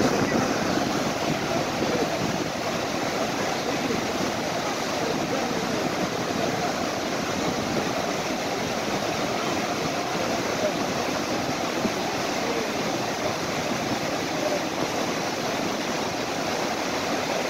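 Rapids of the flood-swollen Swat River making a steady rushing roar of whitewater.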